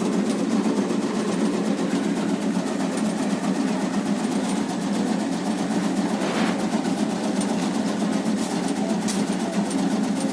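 Motorised tobacco-cutting machine running steadily with a fast, even chatter over a low hum, and a couple of sharp clicks near the end.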